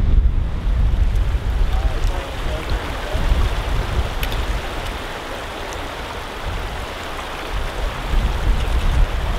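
Wind buffeting the microphone in gusts, easing off in the middle, over a steady even hiss.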